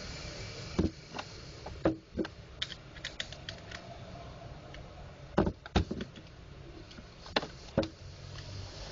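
Scattered sharp clicks and knocks of plastic parts and a metal tool as a laser printer drum unit is taken apart by hand. The loudest come in two quick pairs, about halfway through and again near the end.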